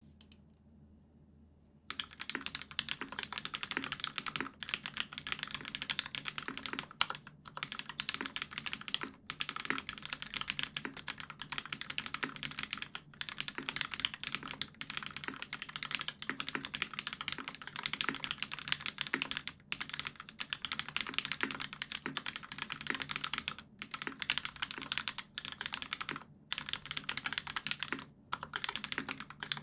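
Mechanical keyboard being typed on fast and continuously, starting about two seconds in, with a few brief pauses. It is a UTD356Mini with an aluminium plate, broken-in Hyperglide Cherry MX Black linear switches lubed with Krytox 205g0, and GMK keycaps.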